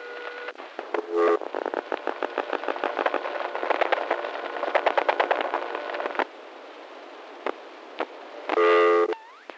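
Telephone line noises on an old answering-machine tape as a long-distance caller hangs up: a steady tone, then a rapid run of clicks and short tone bursts ("cheeps"), and a loud buzzy tone burst near the end. The cheeps are the disconnect signalling of a 1970s long-distance call ending.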